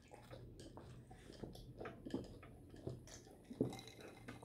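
Soft chewing, sipping and small clicks of two people eating and drinking at a table. Near the end there is one sudden loud knock.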